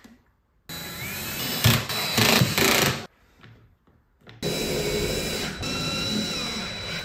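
Cordless drill running in two bursts of two to three seconds each, spinning up and driving screws through wooden mounting boards and brackets into the ceiling.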